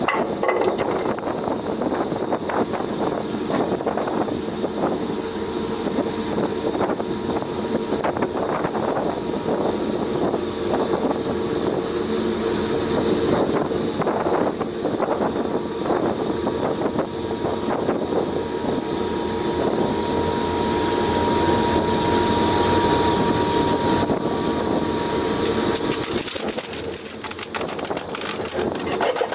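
Balduf PZ 63-1 wood chipper running steadily under load, with irregular crackles and knocks as wood is chipped. Near the end the sound turns harsher and more rasping.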